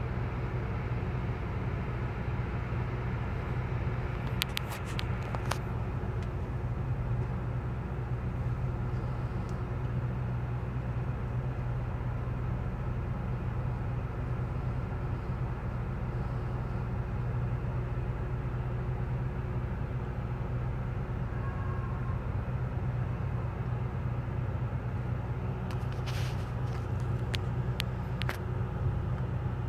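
Steady low drone of a ferry's diesel engines running under way, with water and wind noise over it and a few brief clicks about four seconds in and again near the end.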